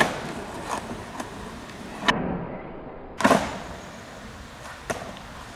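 Skateboard wheels rolling on rough asphalt, broken by sharp clacks of the wooden deck popping and slapping down on the ground. The loudest clack comes about three seconds in, with a smaller one near the end.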